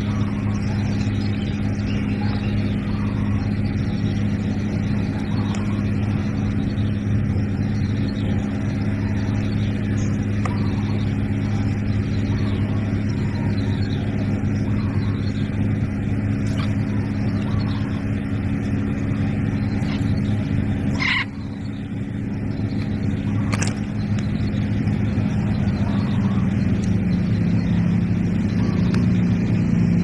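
A steady low mechanical hum with a constant pitch, like a running motor. It dips briefly about two-thirds of the way through, where two sharp clicks sound a couple of seconds apart.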